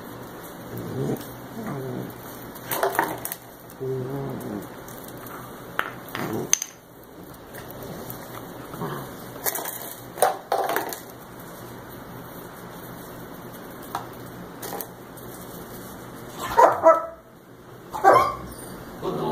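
German Shepherd puppies playing, with scattered short barks and yips and a few knocks; the two loudest barks come near the end.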